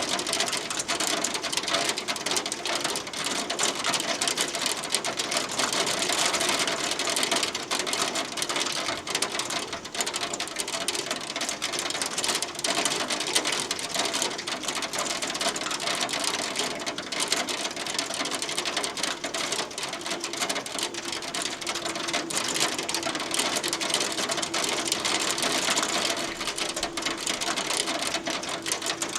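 Hail pelting a hard surface: a dense, steady rattle of countless small ticks and clicks.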